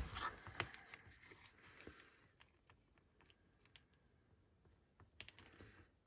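Near silence, with a few faint light clicks and taps from handling craft materials in the first second and again near the end.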